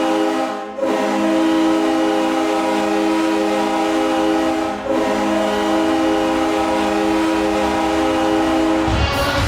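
New York Islanders arena goal horn blowing a low chord in long blasts of about four seconds each, with short breaks about a second in and near the five-second mark. Near the end, the goal song with a cheering crowd comes in.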